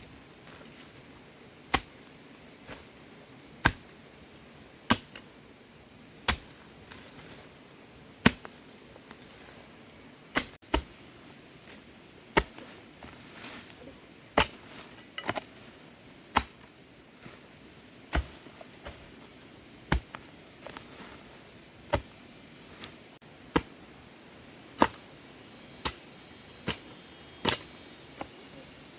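Repeated sharp strikes of a hand tool on wood or bamboo, about one every one to two seconds at an uneven pace, with a faint steady insect hum behind them.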